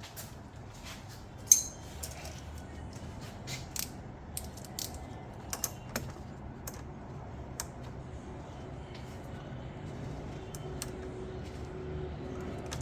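Irregular metallic clicks and taps of a hand tool on a car battery's negative terminal clamp as it is pushed onto the post and its nut tightened. One sharp click about a second and a half in is much louder than the rest, and the clicks thin out after about eight seconds.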